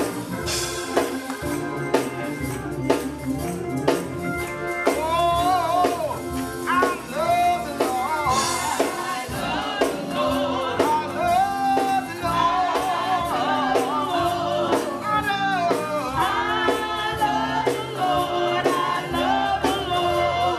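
Live gospel song: a woman singing lead into a microphone with backing voices, over a church band keeping a steady percussive beat. The lead voice comes in strongly about five seconds in, after a stretch where mostly the band and beat are heard.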